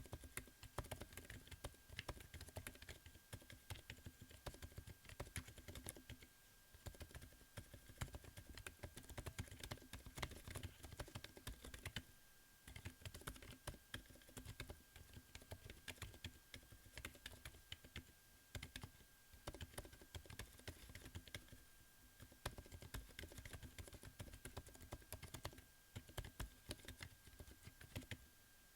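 Typing on a Corne v4 split keyboard with Lofree x Kailh Hades Silent Linear low-profile switches: a steady stream of soft, muted keystrokes with a couple of brief pauses.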